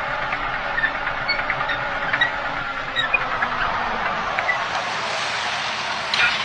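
A tank creeping forward, its tracks clanking and squeaking over its running engine in a steady rattling noise scattered with short squeaks, heard through a doorbell camera's microphone.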